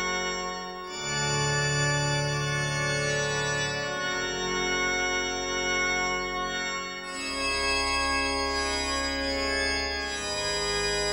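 Background music of held, sustained chords that change about every three seconds.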